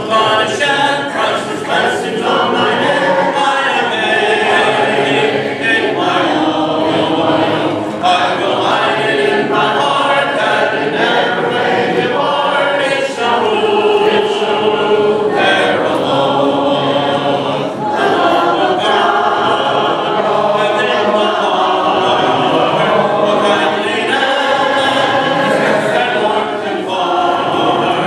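Church congregation singing a hymn together a cappella, with no instruments.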